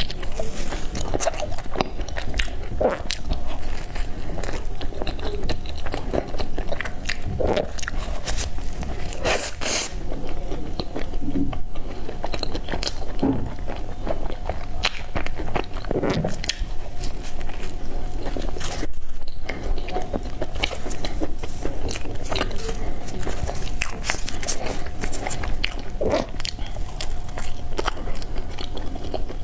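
Close-miked biting and chewing of peanut and black sesame bread: irregular soft crunches and mouth sounds throughout.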